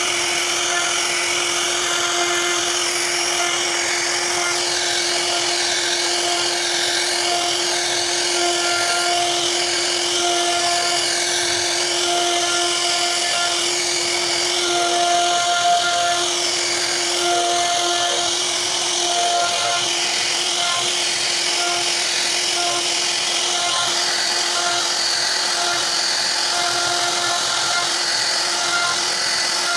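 CNC router spindle running steadily with a whine while its bit carves a relief pattern into a wooden door panel. The cutting hiss wavers up and down as the bit moves through the wood.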